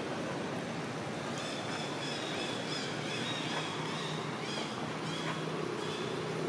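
A newborn long-tailed macaque giving a run of short, high-pitched squeaking calls, each rising and falling, starting about a second in, over a steady low background rumble.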